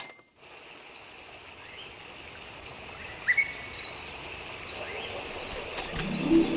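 A nature-ambience sound effect fading in: a faint, steady insect chirring with a fine even pulse, and a single quick rising bird chirp about three seconds in. Near the end, a few sustained low music notes come in over it.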